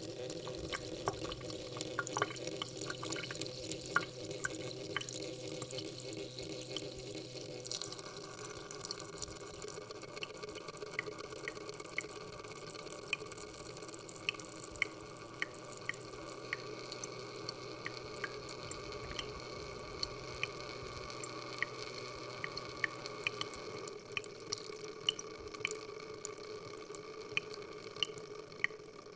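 Water running from an open tap into a stainless steel sink: a steady splashing stream with many small sharp splashes on the metal. Its tone shifts about eight seconds in.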